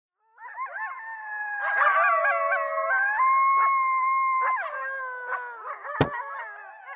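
Several coyotes howling and yipping together, their overlapping voices wavering and holding pitch. About six seconds in, a single sharp gunshot cuts across the howls.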